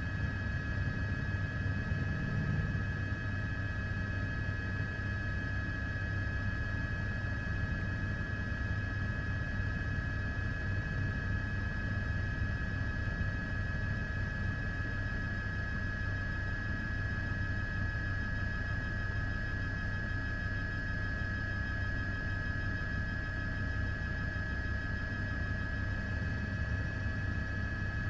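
Steady aircraft noise: a low rumble under several constant high whining tones, unchanging throughout.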